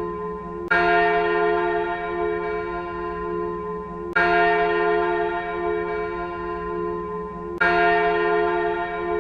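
A single church bell tolling slowly, struck three times about three and a half seconds apart, each stroke ringing on into the next. It is ringing at noon.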